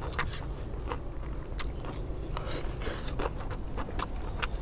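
Metal spoons scraping and clicking against metal platters of fried rice, with chewing. Sharp clicks come at irregular intervals, with a longer scrape about three seconds in.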